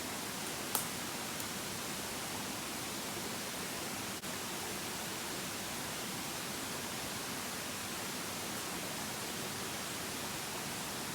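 Steady rush of a mountain stream, with a single short click about a second in.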